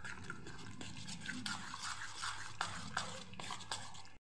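A spoon stirring thick dhokla batter in a stainless steel bowl: a soft wet slapping, with light, repeated scrapes and ticks against the bowl.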